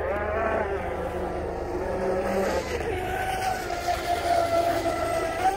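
Pro Boat UL-19 RC hydroplane running at speed: the whine of its Oxidean Marine 4082 six-pole 2200KV brushless electric motor, rising and falling in pitch.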